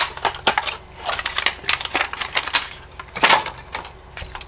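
Blue plastic shrink wrap being cut and peeled off a lithium battery pack, crackling in quick, irregular clicks.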